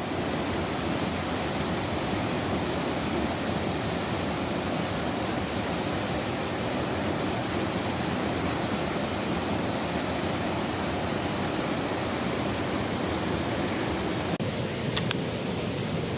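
Waterfall rushing: a steady, even roar of falling water, with a couple of faint clicks near the end.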